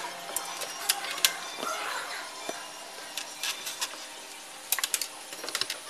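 Small clicks and knocks of hands working on electrical wiring at a mounted fitting: wires and a plastic box being handled, with scattered sharp clicks and a quick run of them near the end.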